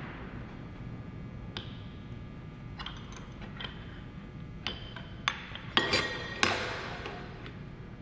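Metal clinks and taps of a wrench working the bolt of a steel extractor tube, screwing it outward to pull the drawn silver cup off the press punch. A few sharp clicks come first, then a burst of louder clinks with a short metallic ring in the second half.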